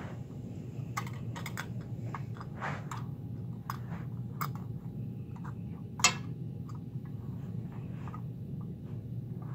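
Scattered clicks and light knocks of a die-cast 1/34 scale First Gear front-loader garbage truck model being handled and set down on carpet, with one sharper click about six seconds in, over a steady low room hum.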